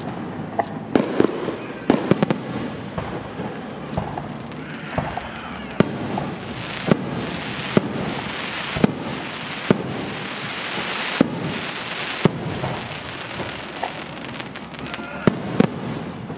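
Aerial firework shells bursting in a string of sharp bangs, about one a second through the middle stretch, over a continuous hissing crackle.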